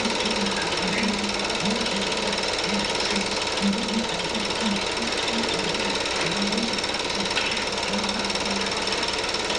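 Home-movie film projector running: a steady rapid mechanical clatter with hiss.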